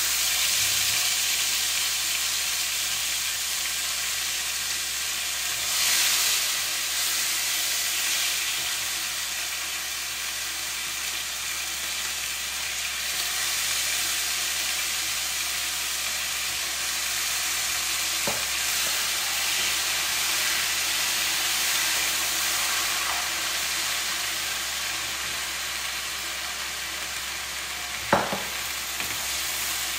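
Marinated mutton pieces sizzling steadily as they fry in hot ghee and oil in a nonstick pan, swelling louder about six seconds in. Two sharp knocks of the spatula against the pan, a faint one past the middle and a louder one near the end.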